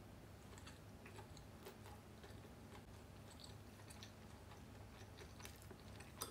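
Faint chewing of food, with scattered small mouth and chopstick clicks and a couple of sharper clicks near the end.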